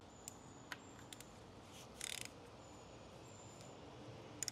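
Faint room tone with a few light clicks and a short rustle about two seconds in.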